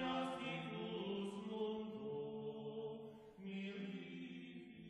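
Background choral music: voices chanting long held notes that shift slowly from one pitch to the next, with a brief dip about three seconds in.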